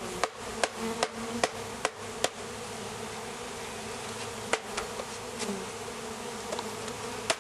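Honey bees swarming around an open hive, buzzing in a steady dense hum. A quick run of sharp clicks sounds in the first two seconds, with a couple more later.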